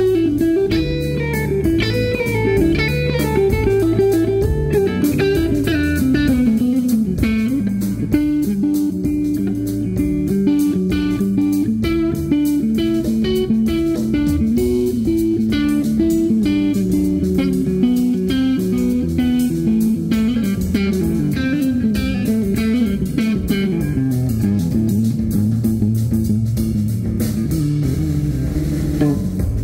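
Live blues-rock band playing an instrumental passage: a lead electric guitar runs fast melodic lines over drums and a steady bass line.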